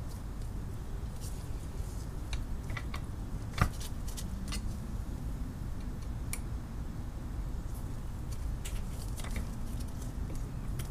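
Scattered light clicks and taps of small metal hand tools and vise parts being handled, with one sharper knock about three and a half seconds in, over a steady low hum.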